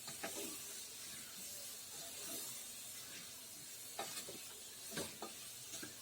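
Spoon stirring black-eyed beans and potato cubes in spiced oil in a pressure cooker, with a steady sizzle and several sharp scrapes of the spoon against the pot.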